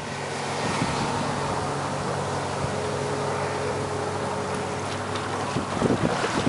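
Outboard motor of a Key West 176 Sportsman center-console boat running steadily at planing speed, holding an even pitch. Near the end the engine tone drops away and wind buffets the microphone.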